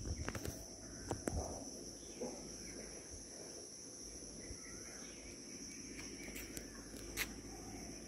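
Steady high-pitched insect drone, with faint bird calls and a few sharp clicks, mostly in the first second and a half.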